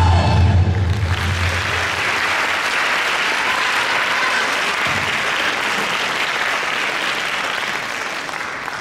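The dance music stops in the first second, then an audience applauds steadily, dying down near the end.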